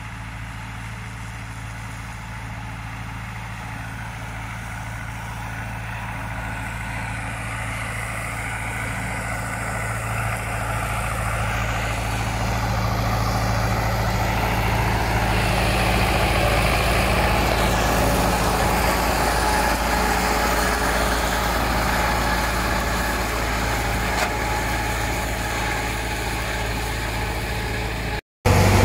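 Belarus MTS-50/52 tractor's four-cylinder diesel engine running steadily while mowing hay with a rotary drum mower. The sound grows louder as the tractor comes close about halfway through, then eases off a little as it moves away.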